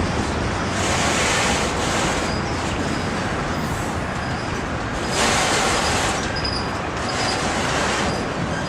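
Freight train cars rolling past on the rails, a steady rumble and rattle that surges as each car goes by, with several brief high-pitched wheel squeals.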